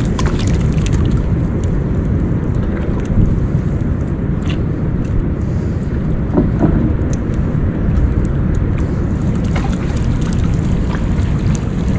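Steady low rumbling noise of wind buffeting the microphone over rushing water, with a few short ticks scattered through it.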